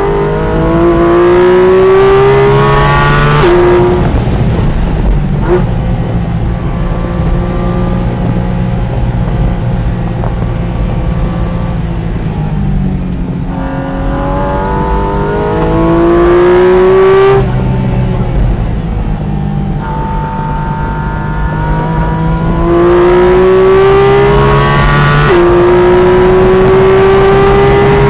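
Track car's engine heard from inside the cabin, pulling hard at full throttle with its pitch climbing, then dropping sharply at an upshift about three and a half seconds in. It runs more steadily at part throttle through the corners, then makes two more hard pulls, each ending in an upshift, one around the middle and one a few seconds before the end, after which it climbs again.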